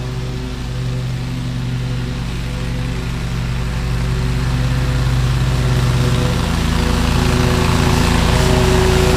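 Toro Grandstand stand-on mower running steadily under cutting load, its engine and blades growing louder as it drives toward the listener.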